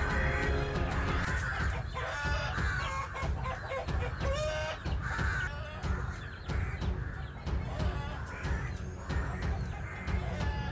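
Chickens squawking and clucking during a fight, with sharp flaps and scuffling, over background music.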